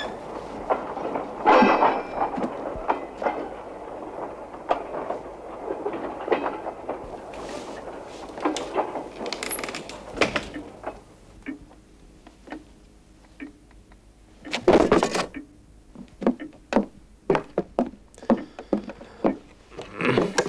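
An irregular clatter of knocks, clicks and clinks, busiest in the first half, with a heavy knock about fifteen seconds in.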